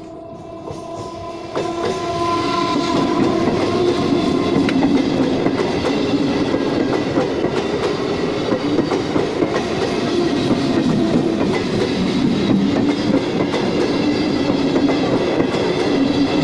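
Electric multiple unit local train with ICF coaches passing close by. Its horn sounds as it comes up in the first few seconds. Then comes the loud, steady rumble and clickety-clack of the wheels over rail joints as the coaches go past.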